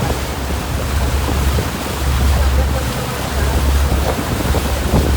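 Wind buffeting the microphone in uneven low gusts over the steady rush of the sea, heard from a boat under way.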